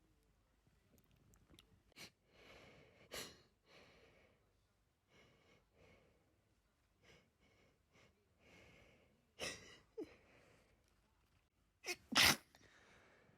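A person's sneeze build-up: several sharp sneezes with breathy, catching inhalations between them, the loudest sneeze coming near the end right after a short catch.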